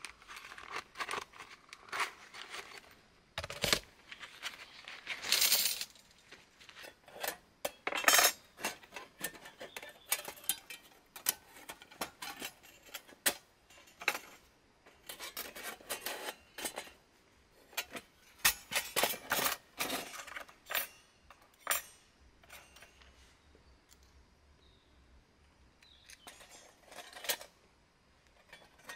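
Metal panels of a folding camp stove clinking and clicking as they are slotted together and the grill bars set on top, in irregular taps and scrapes, with a quieter pause near the end.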